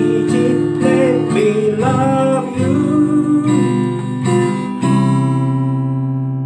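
Acoustic guitar strummed in chords, then a final chord struck about five seconds in and left to ring out and slowly fade, closing the song.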